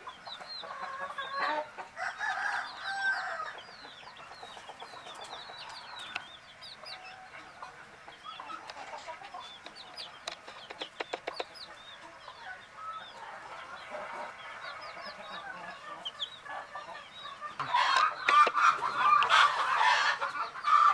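Domestic baby chicks peeping: many short, high, falling chirps throughout, with louder, lower chicken calls at the start and again in the last few seconds. A quick run of ticks comes near the middle.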